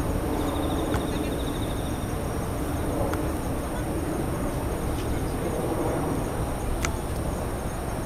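Night insects chirping: steady high-pitched stridulation, with a separate pulsed trill in the first couple of seconds. Underneath runs a steady low rumble, and a few faint sharp clicks sound, the clearest about seven seconds in.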